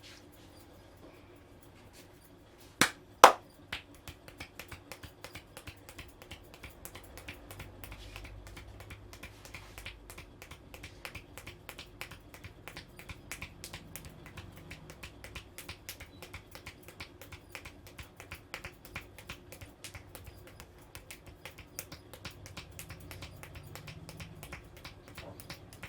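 Two loud, sharp cracks about half a second apart near the start, then a long run of quick rhythmic taps and slaps, several a second: hands drumming on the head in a barber's Indian head massage.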